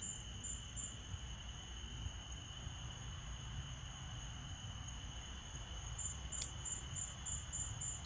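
Faint insect chirring, two steady high-pitched tones with a pulsing edge, over a low rumble. A single short click about six and a half seconds in.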